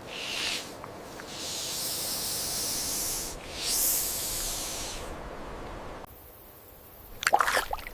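Snake hissing: a short breathy hiss, then a long one of about two seconds, then another of about a second. A brief sound of another kind comes in near the end.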